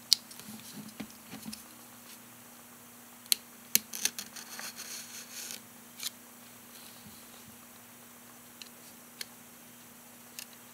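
Snap-off utility knife cutting through the plastic shrink wrap on a cardboard box, with short scratchy scrapes and a few sharp clicks in the first half, then only scattered faint ticks.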